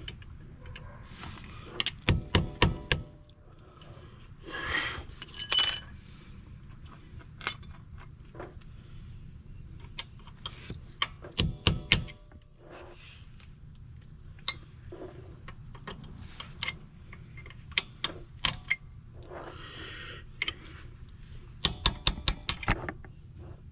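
Hammer striking metal while driving out the drive axle: three bursts of several quick blows, about two seconds in, near the middle and near the end, with scattered single knocks and clinks between.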